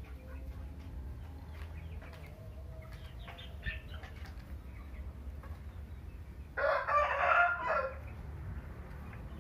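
Chickens clucking softly, then a rooster crows once, loudly, for about a second and a half after some six and a half seconds.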